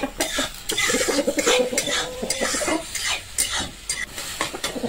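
A spoon scraping and clacking in a heavy-bottomed kadhai, repeated strokes that stir chopped onions, green chillies and tomatoes frying in oil.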